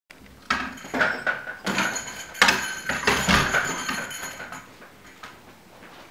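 A quick run of knocks, clatters and rustles, like things being moved and handled, dying away after about four and a half seconds.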